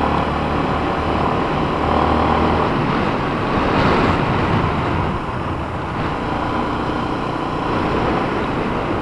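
Yamaha Sniper 155's single-cylinder engine running at a steady cruise of about 55 km/h, with a heavy rush of wind over the microphone.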